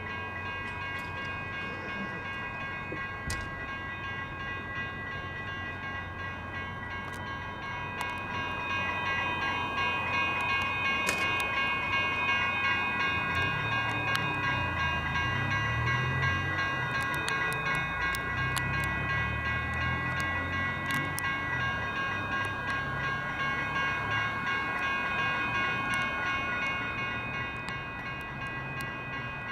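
Electronic railroad-crossing bells, a GS Type 1 and a WCH Type 1.5 e-bell, ringing steadily throughout. From about eight seconds in until near the end, a light rail train of CAF cars passes through the crossing and adds a low rumble.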